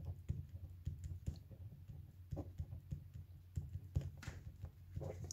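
Marker pen writing on paper: light, irregular taps and short scratches as each stroke is put down.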